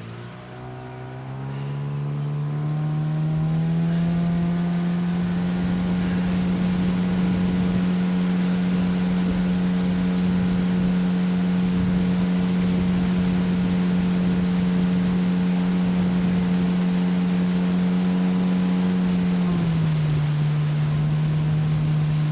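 Boat's outboard motor opening up, its pitch rising over the first few seconds, then running steadily at speed and throttling back near the end. A rushing, buffeting noise runs underneath.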